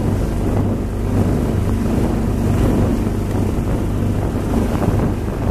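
Outboard motor of a motorboat running at a steady speed with a low, even hum, under wind on the microphone and water rushing past the hull.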